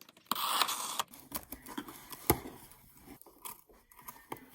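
An iPhone 13 Pro Max's cardboard box and packaging being opened by hand: a short scratchy tearing or scraping sound near the start, then scattered clicks and taps of cardboard and plastic, the loudest a sharp click about two seconds in.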